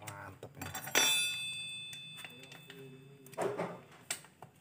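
Sheet-metal chainsaw muffler parts clinking as they are handled and prodded. About a second in, one sharp metallic strike rings on with several high, bell-like tones that fade over a couple of seconds. Lighter clicks follow.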